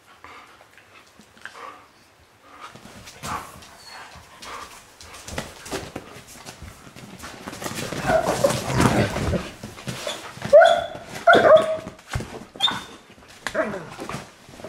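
Saarloos wolfdogs vocalizing while they play together: short calls, many falling in pitch, that come thickest in the second half, among scuffling noises.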